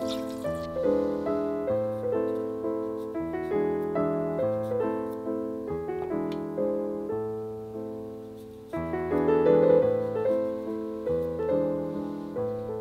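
Background piano music: a gentle run of notes and chords, each note fading after it is struck, with a louder chord coming in about nine seconds in.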